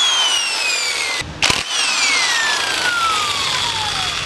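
Cordless power driver spinning out a motorcycle's front brake caliper mounting bolts: two whirring runs, each with a whine that falls steadily in pitch, and a sharp knock between them about a second and a half in.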